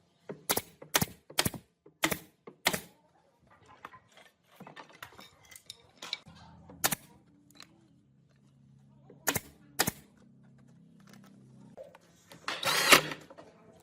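Sharp knocks, five in a row about half a second apart, then lighter scattered taps and two more knocks over a low hum, and a short burst of hissing noise near the end.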